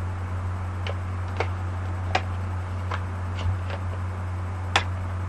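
Light plastic clicks and taps from makeup brushes and a plastic palette case being handled, about seven at irregular intervals, over a steady low electrical hum.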